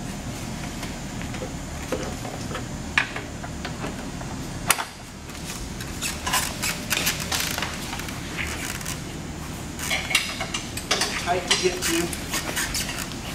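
Plastic bumper-trim clips on a 2016 GMC Sierra 1500 clicking and rattling as a screwdriver pries them apart and the trim is worked loose by hand. A few single sharp clicks come first, then busier runs of clicking and clattering in the second half.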